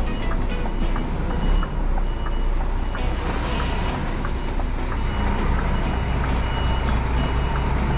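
Scania G410 truck's diesel engine running at low speed while a reversing alarm beeps at a steady repeating rhythm.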